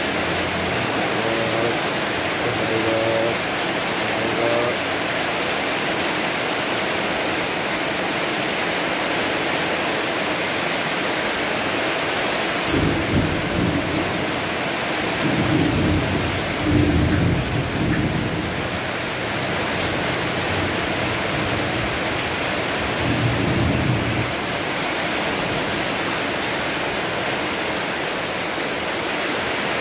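Heavy rain pouring steadily, with several low rumbles of thunder in the middle.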